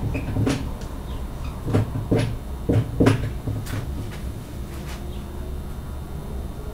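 Dry-erase marker writing on a whiteboard: a series of short taps and strokes, most of them in the first three seconds, over a steady low room hum.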